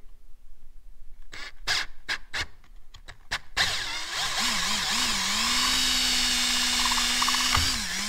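Cordless drill with a 3/4-inch hole saw cutting through a plastic panel. A few short stop-start bursts come first, then a steady run of about four seconds, the motor's pitch wavering before it settles, and it stops just before the end.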